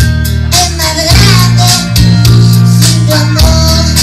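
Recorded Spanish-language ballad playing loudly, in an instrumental stretch between sung verses.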